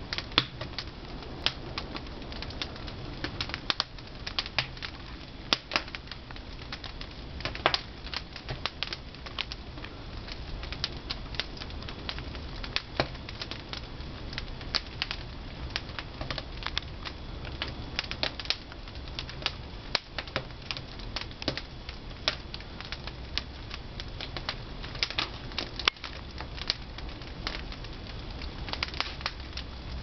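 Pine-wood fire crackling and popping in the firebox of a traditional wood-fired kiln, with irregular sharp snaps several times a second over a low steady rumble.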